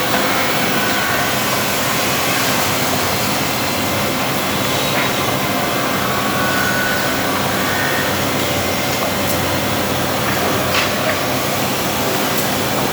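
Double-head drilling machine with automatic workpiece feed running: a steady mechanical din with short whines at several moments and a few sharp clicks.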